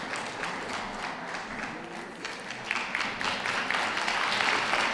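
Audience applauding, a dense patter of many hands clapping that grows louder about halfway through.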